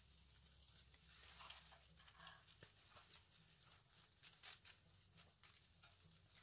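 Faint, irregular crackling and rustling of apple leaves being plucked off the branches.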